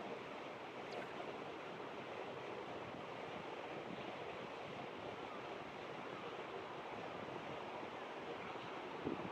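Steady outdoor rushing noise, with no distinct events and a brief louder swell near the end.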